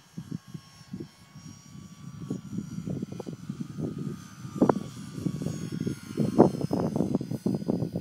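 Wind buffeting the phone's microphone in irregular gusts, over the faint, thin whine of a foam electric RC plane's motor and propeller flying overhead, its pitch sliding slowly as the plane passes.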